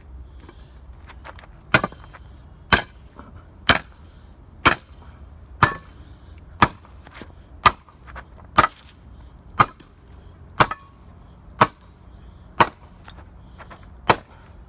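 Hammer blows on metal during the dismantling of a pool heater: about a dozen evenly paced strikes, roughly one a second, starting about two seconds in, each with a short metallic ring.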